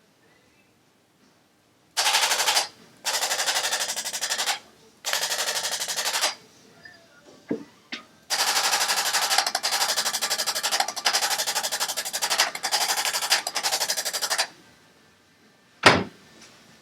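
Handheld electric percussion tool hammering rapidly in bursts: three short bursts, then one long run of about six seconds. A single sharp knock near the end.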